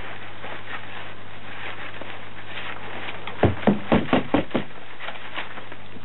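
Plastic sieve crate with a fine mesh bottom being worked over a plastic tub while sifting soil and sand. A little past halfway there is a quick run of about six hard plastic knocks, over a steady background hiss.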